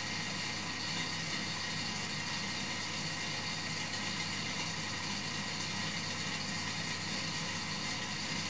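Steady, unchanging hum with hiss, machine-like, with no separate events.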